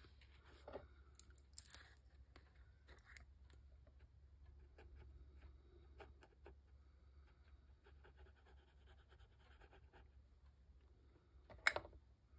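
Quiet handling of craft supplies on a cutting mat: faint rustles and light taps while embossing powder is shaken from a small jar over a stamped paper label, with one sharp click near the end.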